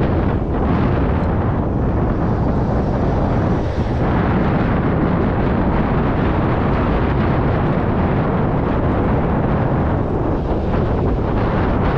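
Steady wind buffeting on the microphone of a camera riding on a moving road bike, a loud, deep, even noise.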